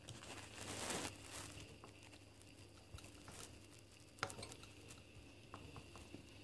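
Quiet sounds of espresso pouring from a La Pavoni lever machine into a glass late in the extraction: a soft hissing rush about a second in, then scattered faint ticks and drips, with one sharper click a little after four seconds.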